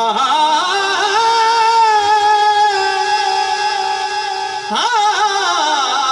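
A man singing a devotional kalam into a microphone: a long held, drawn-out note, then a sharp upward glide about five seconds in, followed by wavering, ornamented phrasing.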